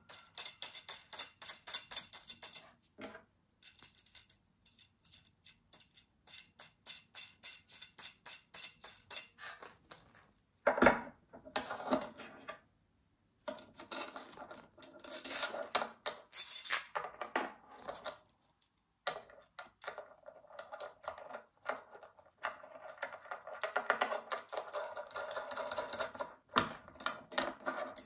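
Metal clicking and rattling in quick runs of clicks broken by short pauses, with an occasional louder knock: nuts and spacers being worked onto the steel bars of a homemade printing press.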